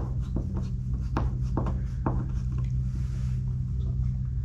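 Small irregular clicks and scrapes of a screwdriver working a bronze wood screw out of a boat's hull plank by hand, over a steady low hum. The screw spins in place rather than backing out, which suggests a problem with the frame wood beneath it.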